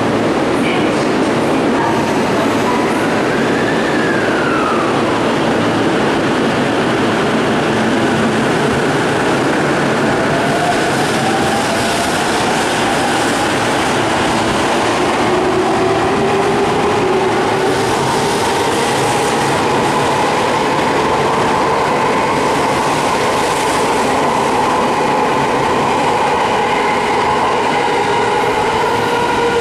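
E231 series electric commuter train pulling out of an underground station: the running noise of the cars under a traction-motor whine in several tones that rise slowly as it gathers speed.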